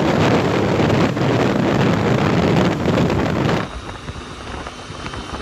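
Wind rushing loudly over the microphone of a camera on a motorcycle at highway speed. About three and a half seconds in it cuts off abruptly to a quieter, steadier motorcycle riding noise.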